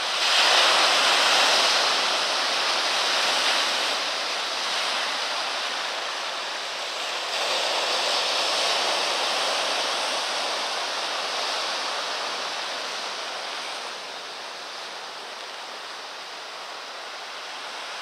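Sea surf breaking and washing over a shore of dark boulders, rising and falling in swells: the loudest wave comes right at the start, another about seven seconds in, and it eases off near the end. The sea is still rough, which is expected to calm by midday.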